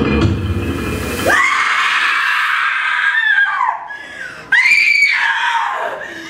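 Music breaks off and a person's high-pitched scream rings out for about two seconds; a second scream starts suddenly about three seconds later and slides down in pitch.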